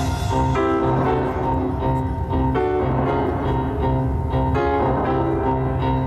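Show music playing: a piano-like keyboard melody over sustained chords.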